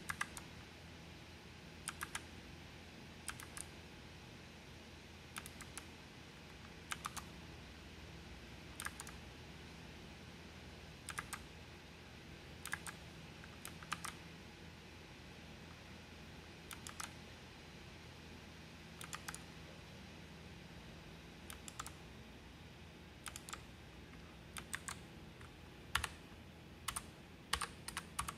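Rakk Lam-Ang Pro mechanical keyboard keys being pressed now and then, sharp clicks that come singly, in pairs or in short clusters every second or two, as Fn key combinations step through the lighting modes.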